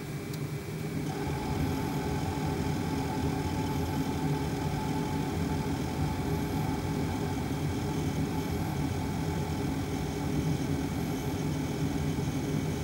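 Car's heating blower fan running steadily in the cabin while the D3WZ parking heater works, growing louder about a second in with a rise in its whine.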